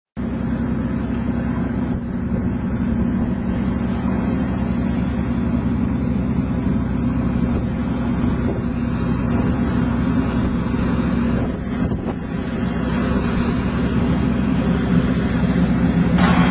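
Motorboat engine running steadily at speed, with a rushing wash of water and wind that grows louder in the last few seconds.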